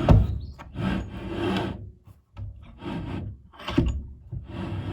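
Doyle 5-inch multi-purpose bench vise being worked by hand: several rasping, rubbing strokes from the turned screw and sliding jaw, with a sharp knock at the start and another about four seconds in.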